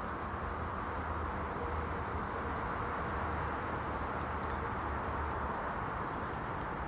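Steady outdoor background rumble with no distinct events, and a faint short bird call about four seconds in.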